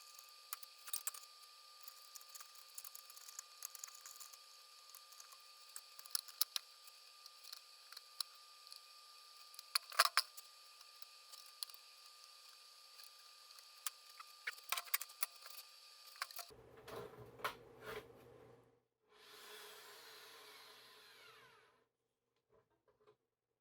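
Scattered small clicks and taps of hand tools and screws being handled on a portable bandsaw's tension mechanism, with a louder knock about ten seconds in. Near the end the taps stop, a brief hiss follows, then silence.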